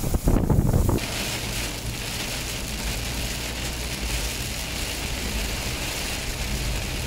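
Wind buffeting the microphone for about a second. Then a steady hiss of heavy rain and a wet road, heard from inside a moving car over a low steady engine hum.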